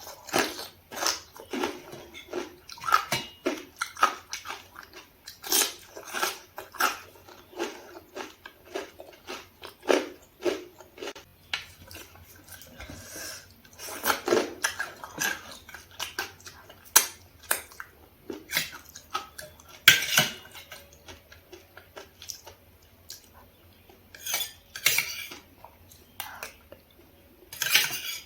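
Close-up eating sounds: chewing and biting mixed with irregular clinks and scrapes of utensils against dishes, with a couple of brief quieter pauses.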